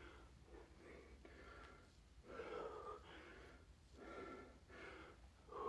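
A man breathing hard during bodyweight air squats, with a faint gasping breath roughly once a second in time with the reps.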